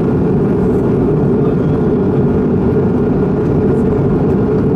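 Steady in-flight cabin noise of a Bombardier CS100 (Airbus A220-100): a dense rush of airflow and the drone of its Pratt & Whitney PW1500G geared turbofans, heaviest in the low range, with a faint steady whine above it.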